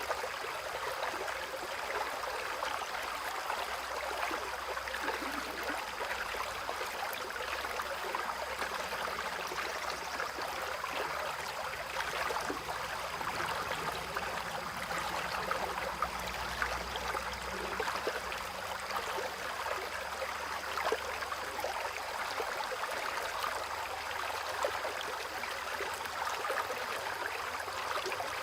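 A stream running steadily with rain falling on and around it: an even rush of water flecked with small drop ticks.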